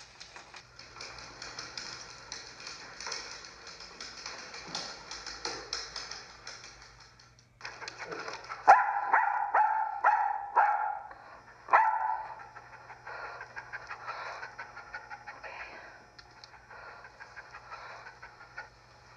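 Dog barking, a short run of sharp, high barks about halfway through, with fast, close rustling before and after.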